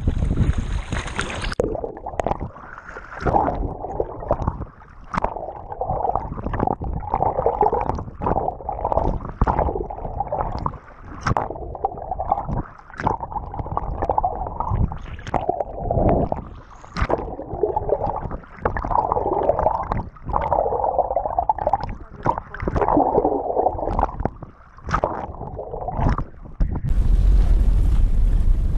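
Muffled gurgling and sloshing of water, broken by irregular knocks. About two seconds in, and again near the end, it gives way to wind blowing across the microphone.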